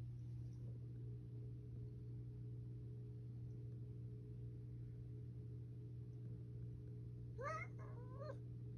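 Domestic cat giving two short, quick pitched calls that rise and fall, near the end; a coaxing, affectionate voice rather than an ordinary meow.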